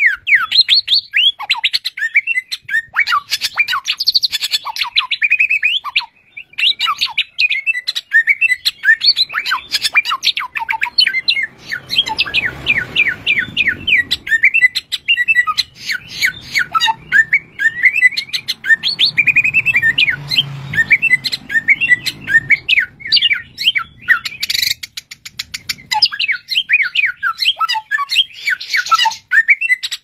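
Caged samyong songbird singing nonstop, a rapid, unbroken stream of varied chirps and whistles. It is the kind of non-stop, many-voiced song that Indonesian bird keepers call gacor.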